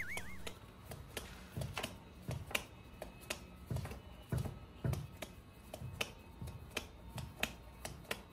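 Soft, irregular tapping clicks, roughly two a second, over a faint low hum.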